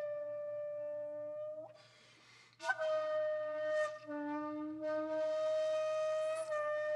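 Background music: a wind instrument holding long, steady notes, which breaks off briefly about two seconds in and then comes back in.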